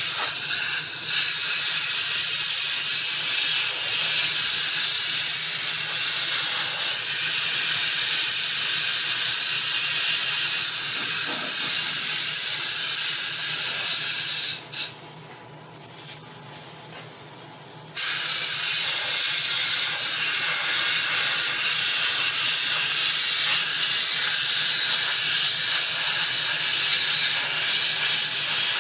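Compressed air hissing steadily from a blow-gun nozzle played over wet epoxy resin. The air cuts off suddenly about halfway through for some three seconds, then comes back on just as abruptly.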